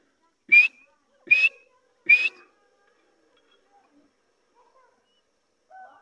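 Francolin (teetar) giving three loud, short whistled calls about a second apart, each sliding sharply up in pitch.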